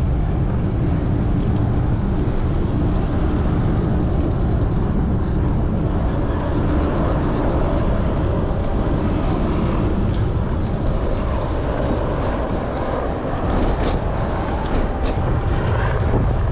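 Steady wind rush and rumble on an action camera's microphone during a bicycle ride, with a faint hum underneath. A few light ticks come near the end.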